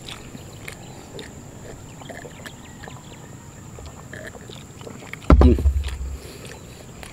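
Faint outdoor background with a few small clicks as two men drink shots. About five seconds in comes a single sharp knock with a low thump on the table near the microphone.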